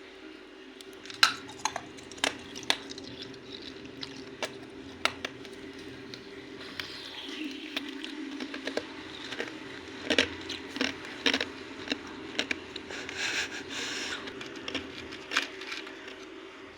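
Lumps of Multani mitti (fuller's earth clay) being crunched and snapped apart: irregular sharp cracks, the loudest about a second in, with a denser crumbling patch a little after halfway. A steady low hum runs underneath.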